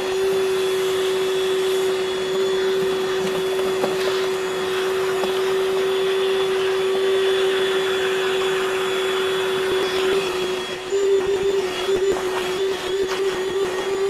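Ryobi PCL734 3-gallon 18V cordless wet/dry vacuum running on high, a steady motor hum with a high whine over rushing air, as it sucks debris off a carpet mat through the bare hose. Near the end the pitch wavers as the nozzle is pressed against the mat.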